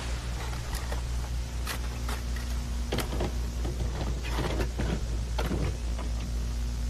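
Old VHS tape playback noise: a steady low electrical hum and hiss with irregular clicks and crackles scattered throughout.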